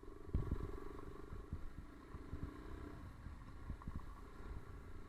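Motorcycle engine running at low revs, an even pulsing hum that fades about three seconds in, with wind buffeting the microphone.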